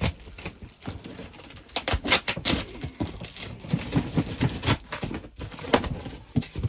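Large cardboard parcel being worked open by hand: irregular scraping, crackling and knocking of cardboard and packing tape, loudest about two seconds in.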